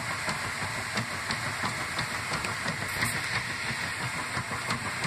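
1997 Kenmore top-loading washer in its agitate cycle: the agitator churns and sloshes a load of clothes through the water in quick, regular strokes over the steady run of the motor and drive.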